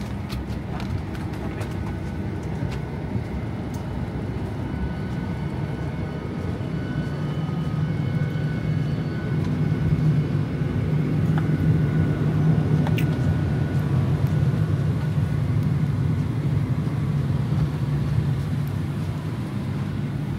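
Steady low cabin rumble of a Boeing 737 taxiing after landing, its engines at idle, growing a little louder partway through.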